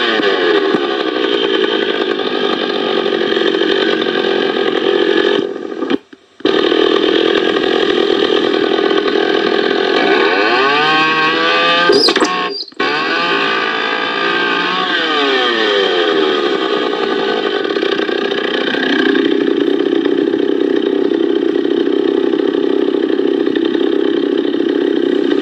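Echo CS-440 EVL two-stroke chainsaw engine running, its pitch falling and rising as it is throttled up and down. The sound drops out briefly twice, and after about nineteen seconds it settles to a lower, steadier pitch.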